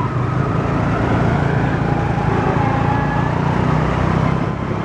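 Motorcycle engine of a moving tuk-tuk running steadily, with the hum of surrounding street traffic.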